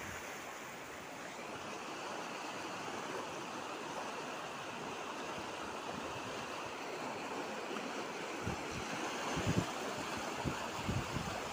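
Steady rushing of a fast-flowing river over rocks, with a few low thumps near the end.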